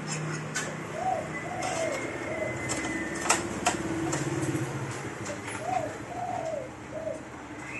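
A dove cooing twice, each phrase three short rising-and-falling notes, over a steady low hum. Two sharp clicks about the middle come from parts being handled inside the copier.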